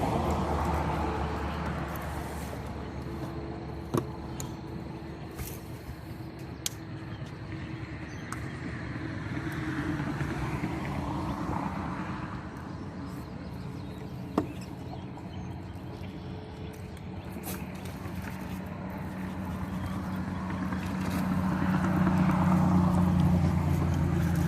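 A boat motor droning steadily, growing louder around the middle and again near the end, with a few sharp clicks.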